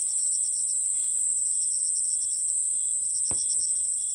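Japanese katydid (Pseudorhynchus japonicus) singing: a continuous high-pitched buzz, over a faster, evenly pulsed insect chirping. A brief rustle of grass stems comes about three seconds in.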